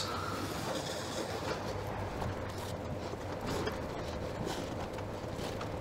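Steady low background hum, with a few faint rustles and ticks of an elastic lace being pulled through leather boot eyelets.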